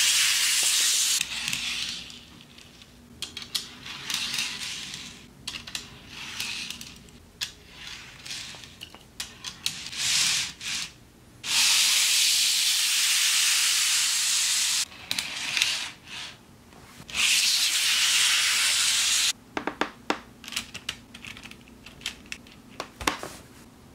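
N scale model railroad cars rolling freely along the track, their small wheels on the rails giving a steady hiss in several stretches of a few seconds that start and stop sharply. Near the end, a run of light clicks as an N scale steam locomotive is handled and set on the rails.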